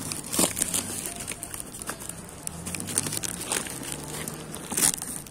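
Clear plastic wrapping and the cardboard of a packed box crinkling and rustling as hands handle it. Sharper crackles are scattered through it, the loudest about half a second in and near the end.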